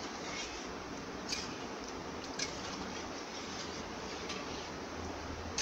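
Metal spatula stirring thin dal in a kadai, giving a few scattered light clinks and taps against the pan over a steady low hiss.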